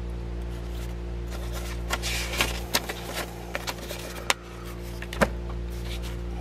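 Paper pages of an old 1924 Dykes automobile repair manual being handled and turned: rustling with several sharp paper snaps between about one and five seconds in, over a steady low electrical hum.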